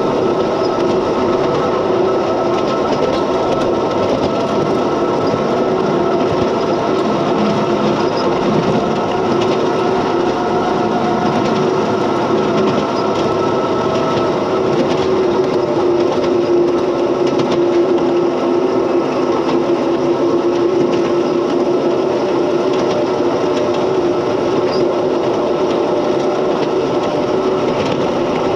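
7 1/4 inch gauge miniature mining locomotive running along the track, heard from its cab: a steady drive hum and whine over the rumble and rattle of the wheels on the rails. The whine sags a little in pitch midway through.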